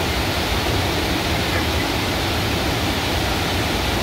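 Multi-tiered waterfall cascading over broad rock ledges: a steady, even rush of falling water.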